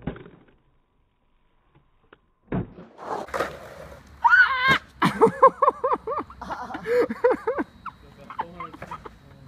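Skateboard hitting and rolling on a concrete bowl, sharp knocks of the board, then a run of quick, warbling vocal calls, about four a second, rising and falling in pitch, with more board knocks among them.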